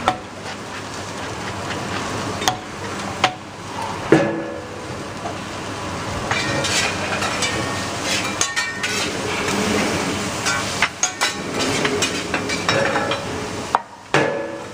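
Food sizzling on a teppanyaki steel griddle, with metal spatulas repeatedly scraping and clicking against the hot plate.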